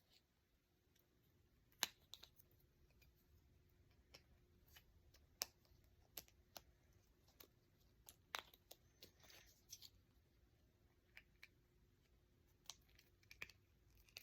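Faint, irregular clicks and taps of small plastic fidget toys being handled, with the sharpest about two seconds in and again around the middle, over a faint steady hum.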